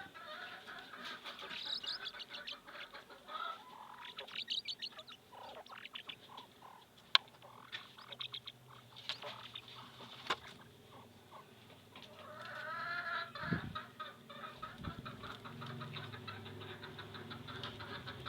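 Domestic fowl calling: repeated clucks and quick high-pitched trilling chirps, with a single sharp tap about seven seconds in and a longer warbling call near the two-thirds mark.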